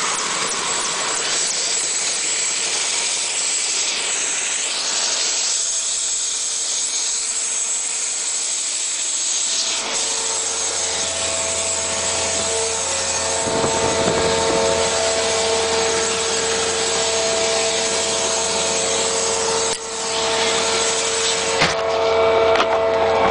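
Helicopter turbine engine and rotors running: a steady rushing noise, joined about ten seconds in by a steady whine and a low hum.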